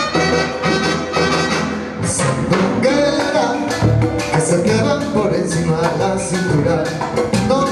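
Salsa music with brass and steady percussion.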